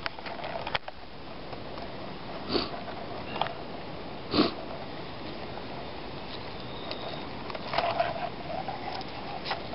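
A person with a hay-fever-congested nose sniffing several times, short noisy sniffs spread a second or more apart.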